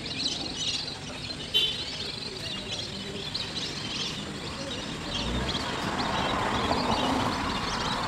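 Many small birds chirping and twittering at once, a busy chorus of short high calls, over a steady outdoor hiss that grows a little louder in the second half.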